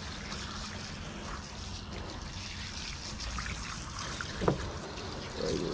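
Garden hose spray nozzle spraying water onto a skinned rooster carcass and a truck bed liner, a steady hiss and splatter of spray. One short sharp tap about four and a half seconds in.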